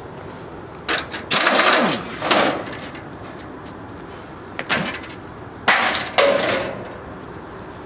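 A pneumatic wrench on an air hose, run in several short bursts in two groups, the longest about two-thirds of a second, undoing the bolts of a steel motorcycle shipping crate.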